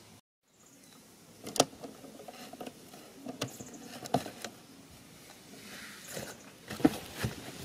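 Cardboard box being handled and worked by hand: scattered scrapes and rustles with a handful of sharp taps, the loudest about a second and a half in, near the middle and near the end.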